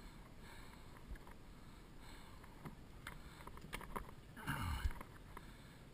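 Faint handling noises as bait is taken from a bucket and put on a hook: a few light clicks, with a louder rustle about four and a half seconds in.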